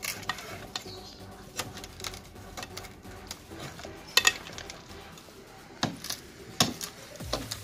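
A hooked steel bar tapping and scraping against a freshly cast concrete column in separate sharp clinks, the loudest a quick double knock about four seconds in.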